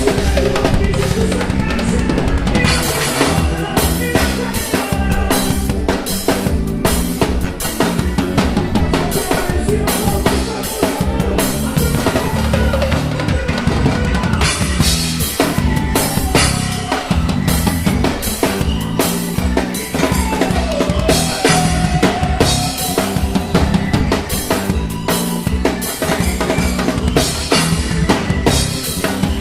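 Band music with a drum kit played hard and to the fore: steady kick and snare strikes over sustained chords from the other instruments.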